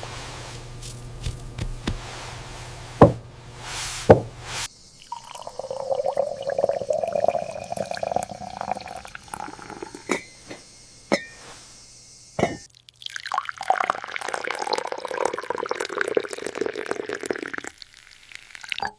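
Water pouring and dripping, in several sections that change abruptly. A few sharp knocks come in the first seconds.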